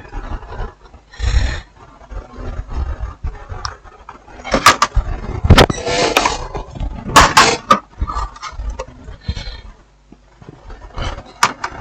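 Irregular clicks, knocks and short scrapes of TV parts and panels being handled and fitted back together.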